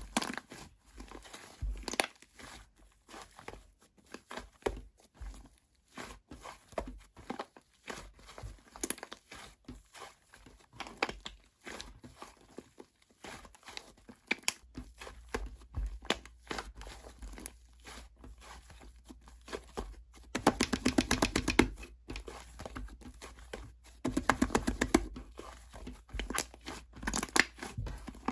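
White fluffy slime being squeezed, stretched and pressed by hand, giving a string of small crackles and air-bubble pops. Twice, about two-thirds of the way through and again near the end, the pops run together into a rapid burst of crackling, louder than the rest.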